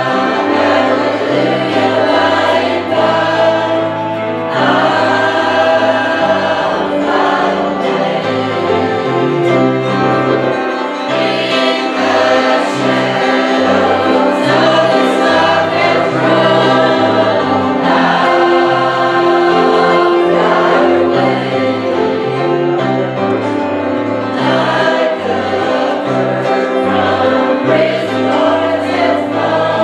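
A choir singing gospel music, over a bass line that steps from note to note.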